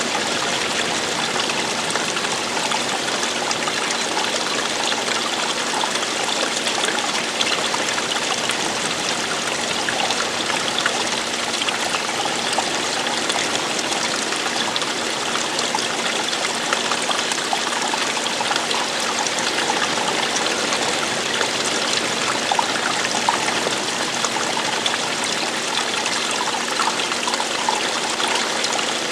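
Running water, a stream or small cascade flowing steadily with a dense splashing and trickling.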